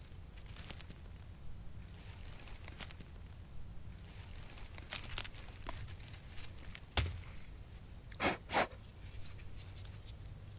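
Bare feet and hands rustling and crunching through dry leaf litter and brush while searching the ground for a stone, with a sharp knock about seven seconds in and two short, louder crunches just after.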